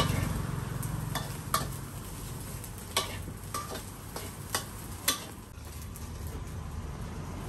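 Metal spatula scraping and clinking against a wok as fried rice is stir-fried, with the rice sizzling. There are about seven sharp, irregular clinks over a steady sizzle.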